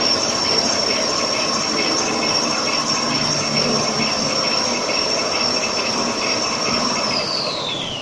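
Toilet paper roll making line running: steady mechanical noise under a loud, high-pitched whine that drops in pitch over the last second.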